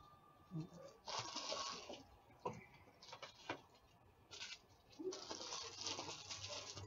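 Faint rustling and crinkling of trading-card packs and their boxes being handled. It comes in three stretches, with a couple of sharp clicks between them.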